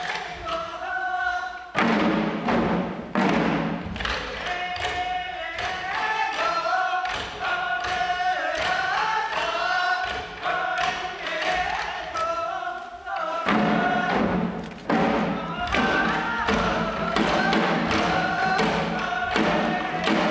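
Shishi-odori deer dance: the dancers beat the small drums slung at their chests in a steady beat while singing together in long, held notes.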